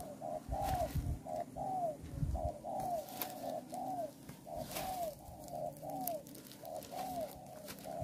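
Spotted dove cooing over and over: a short note followed by a longer rise-and-fall coo, repeated about once a second.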